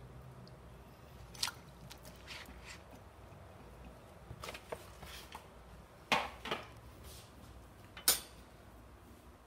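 A handful of sharp clicks and light knocks as a metal fork and a raw chuck roast are handled in a ceramic crockpot insert. The loudest come about six and eight seconds in.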